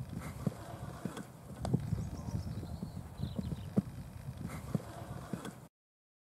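Hoofbeats of a young horse cantering loose on a sand arena and jumping a fence, a run of uneven thuds with a few sharper strikes. The sound cuts off suddenly near the end.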